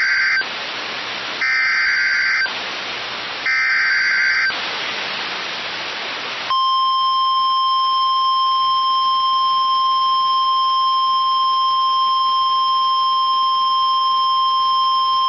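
NOAA Weather Radio emergency alert opening a severe thunderstorm warning. Three SAME digital header bursts, each about a second of screechy data tones, are separated by radio hiss. Then comes the steady warning alarm tone, held for about nine seconds.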